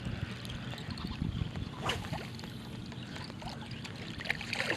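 Water splashing and trickling at the side of a boat over a low steady hum, with a sharp splash or knock about two seconds in and a few light clicks near the end.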